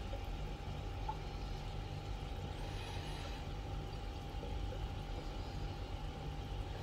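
Steady low machine hum with a faint, thin steady whine above it and a few soft ticks.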